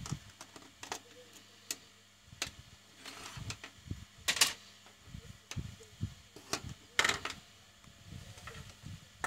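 Handling noise from a WiFi modem's circuit board and plastic case: scattered light clicks and knocks, with two louder brief scrapes about four and a half and seven seconds in, over a faint steady low hum.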